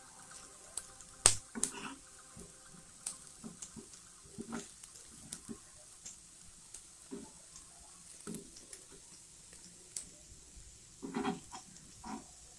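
Spatula tapping and scraping on an iron tawa as paneer cubes are turned over while shallow-frying in a little oil. It comes as scattered clicks and knocks, with one sharp knock about a second in and a quick cluster near the end.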